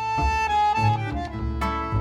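A tango trio of bandoneon, guitar and double bass playing a classic tango, with held bandoneon chords over a bass line that moves in short notes.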